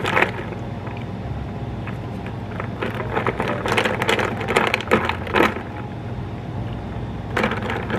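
Ice cubes and a wooden stirrer clinking against a glass as an iced latte is stirred: bunches of short clicks a few seconds in and again near the end, over a steady low hum.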